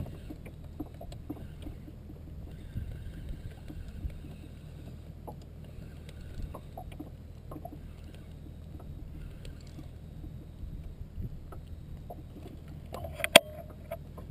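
Quiet aboard a canoe at night: a low steady hum with scattered small knocks and clicks, then one sharp click near the end as a head torch is switched on.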